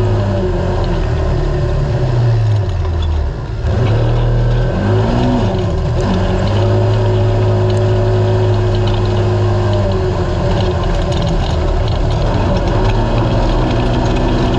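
Naturally aspirated Polaris RZR race UTV's engine running hard. Its pitch falls about three and a half seconds in as the throttle comes off, then climbs again and holds steady for several seconds before shifting near the two-thirds mark, over a constant rush of wind and terrain noise.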